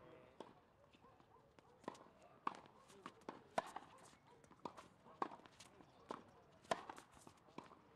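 Tennis balls struck by rackets and bouncing on a hard court, a string of sharp knocks about once a second, with footsteps.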